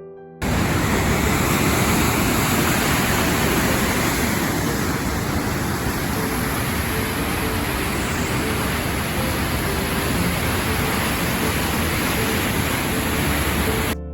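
Steady, loud rush of the Sogi Falls waterfall, cutting in suddenly about half a second in and cutting off just before the end.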